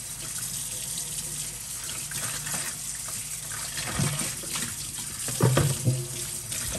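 Kitchen tap running into a stainless steel sink while gloved hands rinse things under it, with a couple of brief knocks about four and five and a half seconds in.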